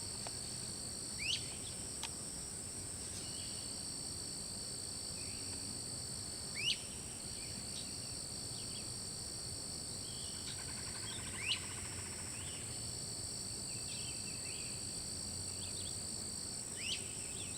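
Steady high-pitched drone of insects, with a bird repeating a short, sharp rising whistled note four times, about every five seconds.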